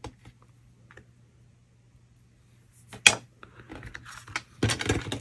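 Hands handling card pieces on a glass craft mat: a sharp tap about three seconds in, then light scraping and a short burst of rustling and sliding near the end, over a faint steady low hum.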